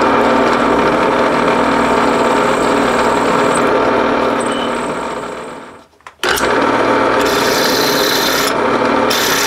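Powered twist drill boring into a cast iron engine-cylinder casting: the machine's motor hums steadily under the scraping of the bit cutting metal. The sound fades slightly, stops briefly about six seconds in, then starts again as drilling resumes.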